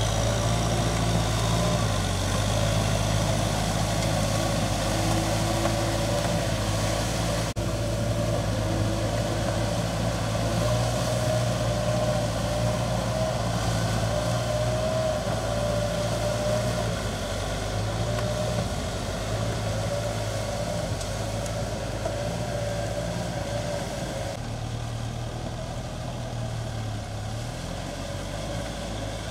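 Kubota M6040S tractor's diesel engine running steadily under load as it drives a rotary tiller through flooded paddy mud, with a steady whine above the engine note. The high end drops off near the end, as if heard from farther away.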